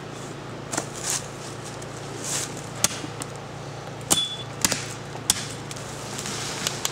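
A knife chopping into the trunk of a sapling: several sharp whacks at uneven intervals, with leaves and branches rustling between them.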